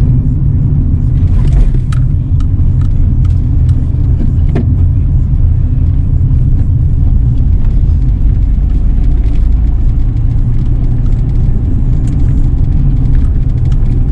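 Steady low rumble of a car driving along a town street, heard from inside the cabin: engine and tyre noise, with a few faint light clicks.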